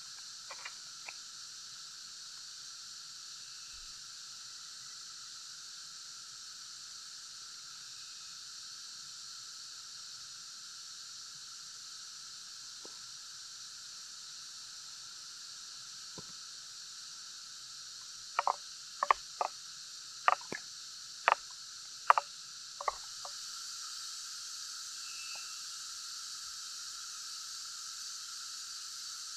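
Steady high-pitched insect chorus of the rainforest. About eighteen seconds in, a spoon knocks against the aluminium mess tin about eight times over five seconds.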